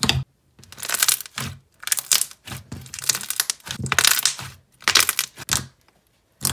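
Thick, glossy glue-base slime squeezed and pressed between the hands, giving a run of short crackly bursts of wet clicks and bubble pops with brief pauses between them.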